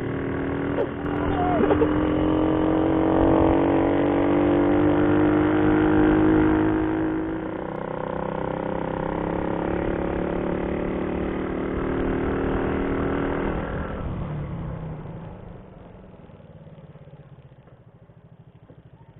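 Motorcycle engine accelerating, its pitch climbing steadily for several seconds, then holding steady before dying down after about fourteen seconds.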